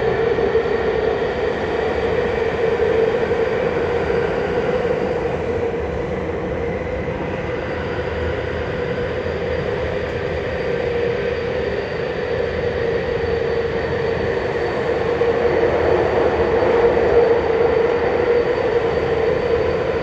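Minatomirai Railway Y500 series electric train running, heard from inside the passenger car in a tunnel: a continuous wheel-and-track rumble with a steady high whine over it, growing a little louder near the end.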